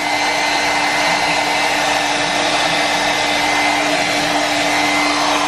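Hair dryer running steadily: a constant rush of air with a steady hum, blowing a pet bird dry after its bath.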